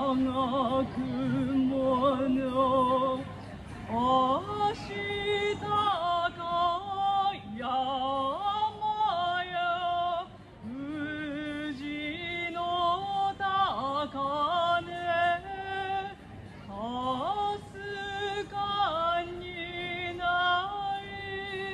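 A woman singing solo into a microphone, unaccompanied: long held notes, most of them entered with an upward slide, the first one wavering.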